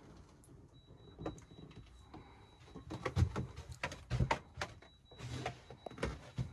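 Faint, irregular knocks and thumps, several in quick succession from about three seconds in, of someone moving about in a small wood-panelled sailboat cabin. A thin steady high whine runs under them from about a second in.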